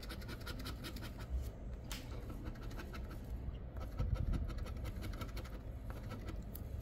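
A large coin scratching the coating off a paper scratch-off lottery ticket in quick, repeated strokes.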